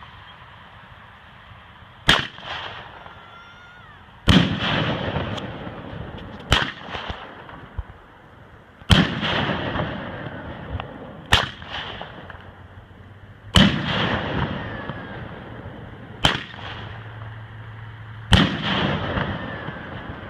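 A 'boom stick' firework firing its shells in sequence: eight sharp bangs about two seconds apart. They alternate between a shorter crack and a louder bang with a long rolling echo, which fits each shell's launch followed by its burst in the air.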